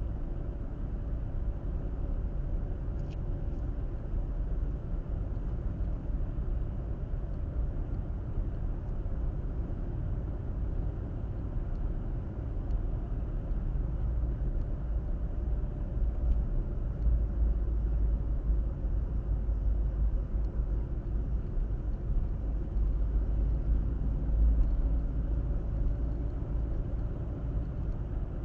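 Steady low rumble of a car driving along a road, tyre and engine noise, growing slightly louder in the second half.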